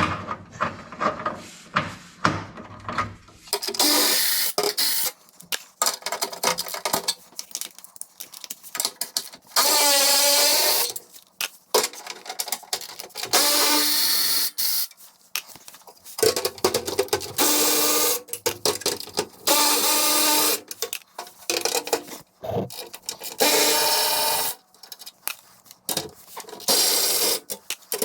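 A power tool running in repeated short bursts of a second or two each, removing the 12 mm bolts that hold the factory engine splash guards, with clicks and handling noise between the bursts.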